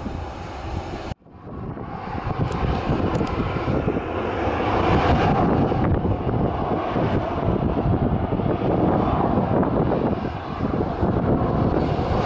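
Aircraft engine noise that builds over a few seconds after a sudden cut about a second in, then holds loud and steady, with gusty wind buffeting the microphone underneath.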